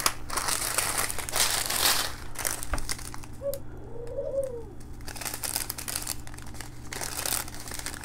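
Crinkling of small clear plastic bags of diamond-painting rhinestones and faceted round drills as they are handled and turned over, in spells with a lull about halfway through. In the lull comes a faint, short low-pitched sound.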